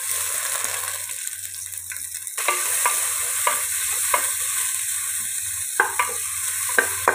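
Sliced onion, capsicum and green chilli sizzling as they drop into hot ghee in a pressure cooker, then stirred with a wooden spatula. Over the steady frying hiss the spatula knocks and scrapes against the pan at uneven intervals from about two and a half seconds in.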